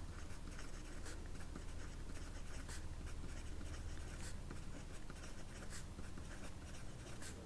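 Pencil writing on paper: a run of short, quick scratchy strokes as hour numbers are written along a hand-drawn graph axis, over a steady low hum.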